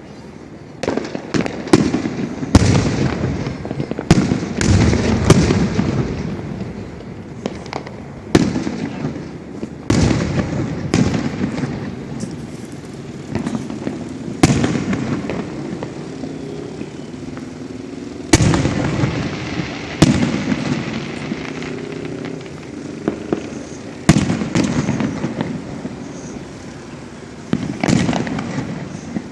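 Aerial fireworks bursting: a long run of sharp bangs, some in quick clusters, each followed by a rolling echo, with crackling between the larger reports.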